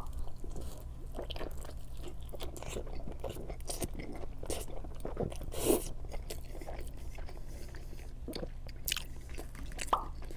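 Close-miked biting and chewing of a Pizza Hut pizza slice dipped in ranch: a bite at the start, then irregular crackly chewing with small smacks and crunches, loudest a little past the middle and again near the end.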